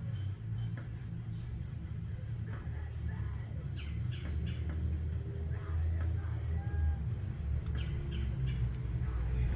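Outdoor background: a steady high insect trill, a few short chirps and a continuous low rumble.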